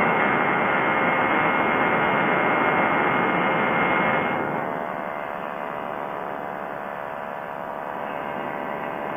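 Quicksilver ultralight airplane's engine and propeller droning steadily in cruise flight over the rush of wind. About halfway through the sound gets quieter and duller.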